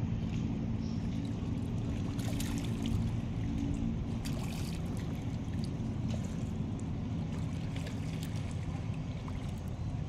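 A boat engine runs steadily with a low drone over splashing, lapping river water. Brief louder splashes come about two seconds in and again about four seconds in.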